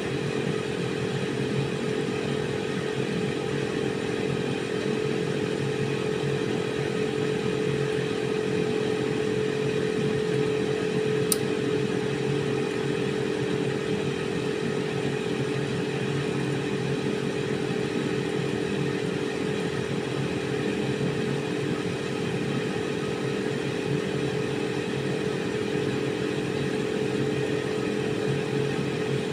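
Air fryer running: a steady fan whir with a constant hum, and a single faint tick about eleven seconds in.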